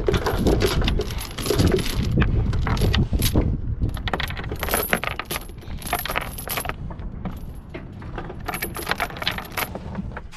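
Steel mooring chain clinking and rattling, link on link, as it is hauled out of the chain locker. The clanks come in irregular runs, busiest in the first few seconds and then in shorter bursts.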